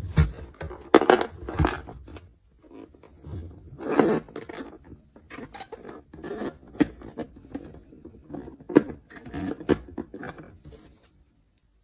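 Plastic toy pieces and packaging being handled during an unboxing: irregular clicks, taps and rustling that stop near the end.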